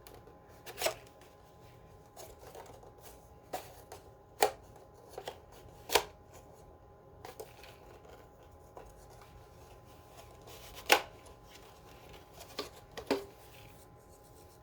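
A plastic smoke alarm and its packaging being handled: scattered sharp clicks and taps with light rustling, about a dozen at uneven intervals, the loudest about eleven seconds in.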